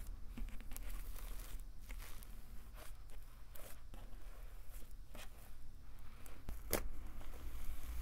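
Fluffy cloud slime made with instant snow being kneaded and pulled by hand, giving soft crackling, tearing sounds, with one sharper, louder tear about two-thirds of the way through.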